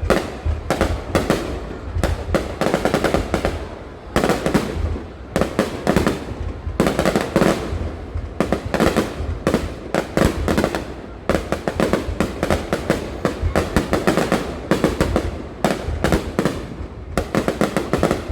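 Fireworks going off in rapid, near-continuous volleys of bangs and crackles, in clusters with only brief lulls.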